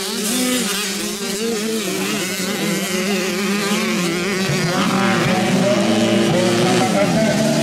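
Several motocross bike engines running together, revving and backing off so that their pitches rise, fall and overlap. From about five seconds in, one engine holds a louder, steadier note.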